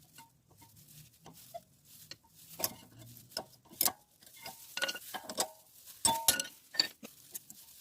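Metal-on-metal clinks and taps from handling tools and disc brake parts at the caliper: a string of short, sharp strikes, several ringing briefly, loudest about six seconds in.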